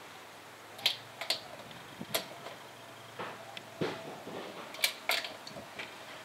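Socket wrench working a wheel nut on a wheel spacer: about ten sharp metallic clicks and clacks, spaced unevenly, the loudest about one second in and near five seconds in.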